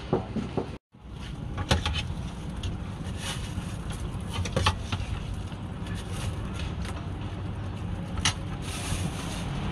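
Metal serving spoon clinking and scraping against aluminium cooking pots as curry is scooped into a plastic bag: a few sharp clinks, two close together twice and one more near the end, over a steady low background rumble.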